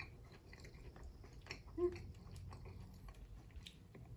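A person chewing a mouthful of rice and crispy chicken, with small wet mouth clicks. A brief short hum-like sound comes just under two seconds in.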